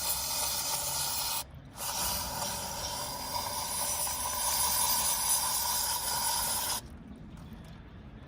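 Cleaner sprayed under pressure into the passages of an EGR cooler, hissing steadily. It breaks off briefly about a second and a half in, then runs again until it stops abruptly near the end.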